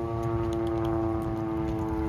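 Federal Signal Model 7 outdoor warning siren sounding during a test. It holds a steady, rich tone that sags very slightly in pitch, over a low rumble.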